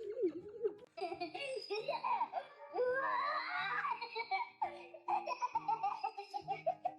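A baby laughing and giggling in bursts, with a run of quick repeated laughs in the second half, over light background music.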